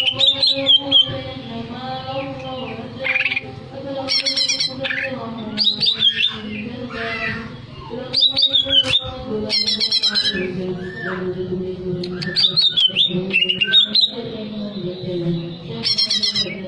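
Green leafbird (cucak ijo) singing: repeated short bursts of rapid, wavering high chirps and squawky notes, a phrase every few seconds, with a cluster of phrases in the second half.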